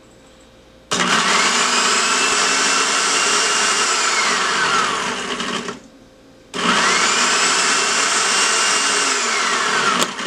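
Countertop blender grinding María cookies into crumbs, run in two pulses with a short pause between them. Each time the motor whine rises as it spins up and falls away as it is switched off. The blender is switched off and on so the cookies keep turning onto the blades.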